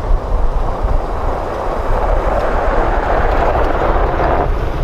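A truck driving past on a snow-covered street, its noise swelling as it comes close and dropping off sharply about four and a half seconds in.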